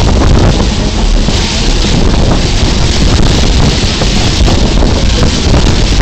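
Steady rushing wind noise on the microphone over the low rumble of a moving train.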